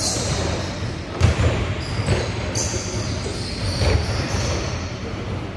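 Basketballs bouncing on a hardwood gym floor in irregular thuds, the loudest about a second in.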